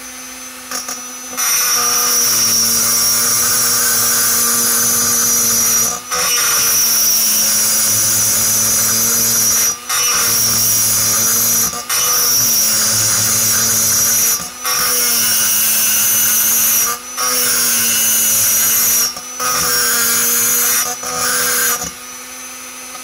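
Handheld rotary grinder with a small bit, running as a steady high whine while grinding inside a port of a two-stroke chainsaw cylinder. It starts about a second and a half in, dips briefly every two to three seconds as the bit is eased off, and stops near the end.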